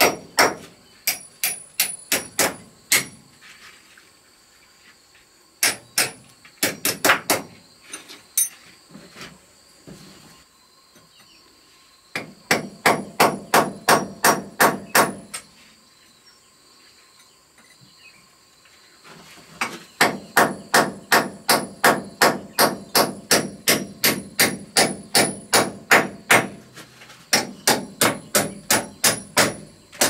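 Hand hammer striking in quick runs of blows, about three a second, with short pauses between the runs.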